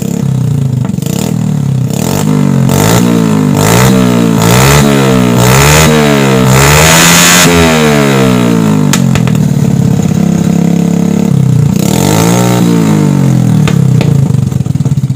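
Suzuki Smash motorcycle's stock single-cylinder four-stroke engine revved through a homemade racing exhaust, loud: a string of quick throttle blips rising and falling, one longer rev held about seven seconds in, then lower running with another couple of blips near the end.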